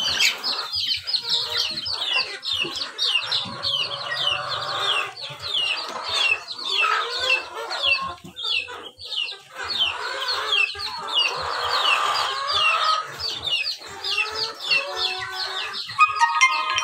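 A flock of heritage chickens clucking and calling in their coop, with a rapid, continuous run of short high falling chirps over the clucking.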